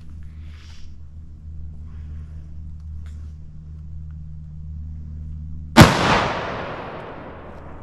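A single rifle shot from a scoped bolt-action rifle, about six seconds in, after a low steady hum; the report rings out and fades over about two seconds.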